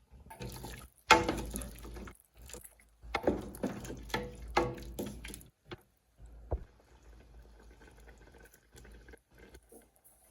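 Cooking utensils clattering against a metal pot with some liquid sounds. There is a loud knock about a second in, more ringing clatter over the next few seconds, then quieter scattered handling.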